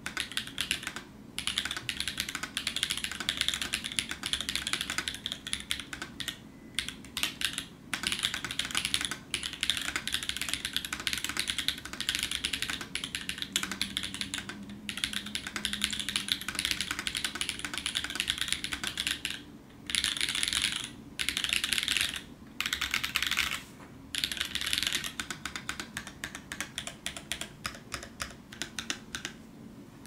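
Mechanical keyboard built with Moyu switches, Zeal stabilisers and an aluminium plate, being typed on steadily: a dense run of key clacks broken by a few brief pauses, thinning out near the end.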